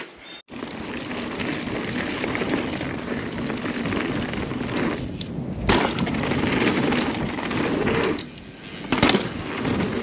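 Mountain bike rolling down a dirt and rock trail: steady tyre and drivetrain noise with the bike rattling, a sharp knock a little past halfway and another near the end.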